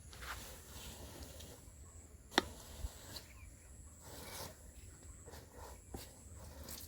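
Grass being cut by hand with a blade: a few sharp chops or knocks, the loudest about two and a half seconds in.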